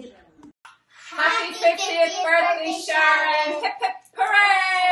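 Young girls singing in held, sung notes. One phrase starts about a second in, there is a short break near four seconds, then another phrase.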